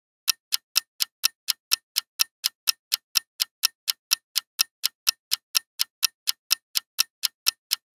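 Countdown timer's clock-ticking sound effect: a steady run of sharp ticks, about four a second.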